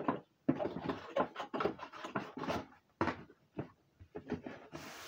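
Cardboard and paper packaging being handled: a quick run of knocks, taps and scrapes, with a hissing rustle near the end.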